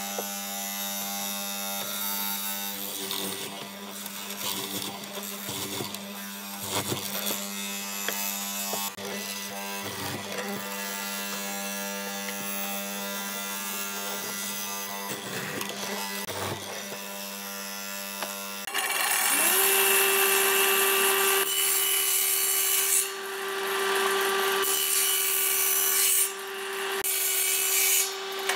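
A benchtop hollow-chisel mortiser's motor runs with a steady hum while the chisel is plunged again and again into pine, giving irregular knocks and scraping. About 19 seconds in, a table saw starts up, rises quickly to speed and runs louder, cutting wood.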